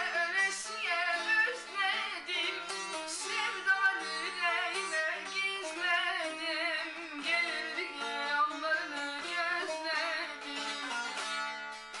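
A boy singing in a high voice with a wavering, ornamented melody while playing a bağlama (long-necked Turkish saz), its plucked strings sounding steadily under the voice.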